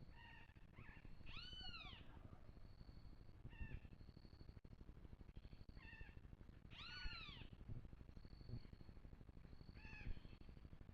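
Faint animal calls: two drawn-out calls, each rising then falling, about five seconds apart, among shorter notes, with a thin high tone repeating in the background.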